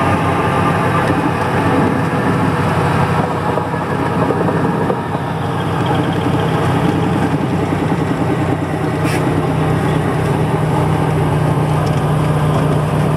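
Aircraft engines running steadily, heard from inside the passenger cabin as the plane rolls along the runway, a loud, even hum.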